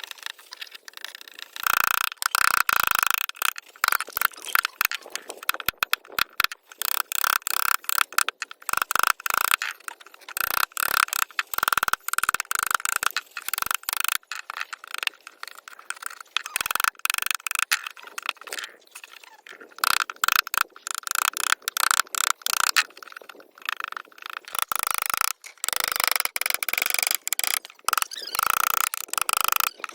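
Hand carving tool cutting and scraping into wood in rapid, irregular strokes, with brief pauses between bursts of scratching.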